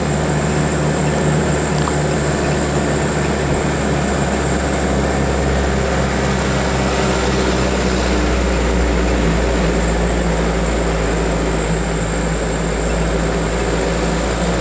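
A car driving steadily along a road, heard from inside the cabin: a continuous engine drone and road noise, with a thin steady high-pitched whine over it.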